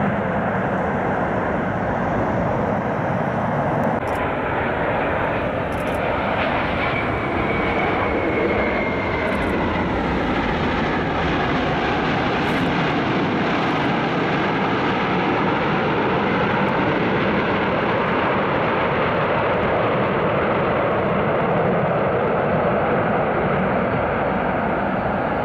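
Jet engines of a Delta Boeing 777-200 rolling along the runway after landing: a steady jet noise with slowly shifting tones and a faint whine that drops a little about seven seconds in.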